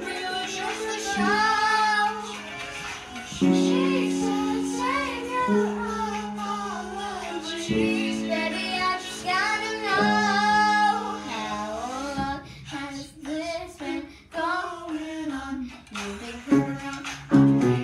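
A young girl singing a pop song, accompanied by a man playing chords on a piano.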